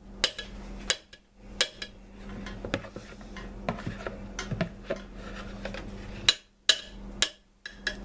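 A spatula scraping and knocking against a stoneware crock-pot insert as soft liquid-soap paste is worked into hot water, giving a run of irregular sharp taps over low scraping.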